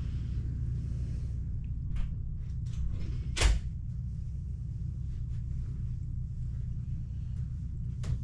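Steady low room hum with a few scattered knocks, the loudest about three and a half seconds in, like a door or cupboard shutting.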